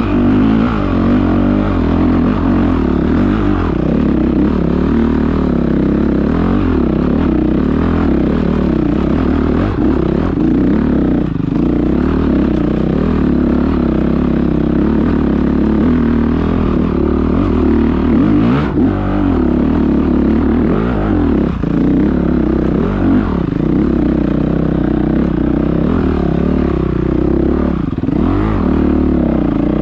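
Motocross bike engine heard close from the rider's helmet, running hard with the revs rising and falling again and again as the bike is ridden over rough ground.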